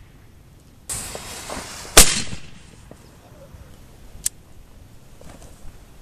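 A burning fuse hisses for about a second, then the homemade black-powder cannon fires with one very loud bang that dies away over about a second. About two seconds later comes a single short, sharp crack.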